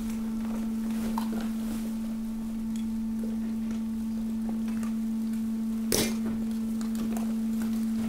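Hydraulic waste compactor running with a steady hum while mixed waste shifts in its hopper with light clicks and rattles. One sharp knock about six seconds in.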